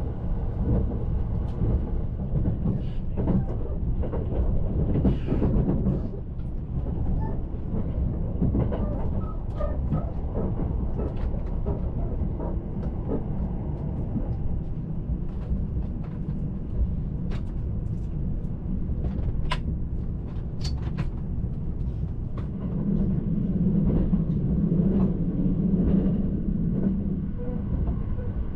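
Cabin noise of an E353-series Azusa limited express train in motion: a steady low rumble of wheels and running gear, with scattered sharp clicks and ticks. The rumble grows louder for a few seconds near the end.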